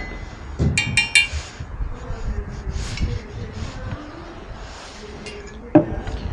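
Slender metal figure sculptures clinking against a glass display-case top as they are handled: a quick run of ringing clinks about a second in, then a heavier knock near the end as one is set down on the counter.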